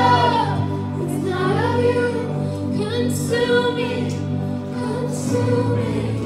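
Live worship music: a woman sings a slow, wavering melody over a band's steady held chords.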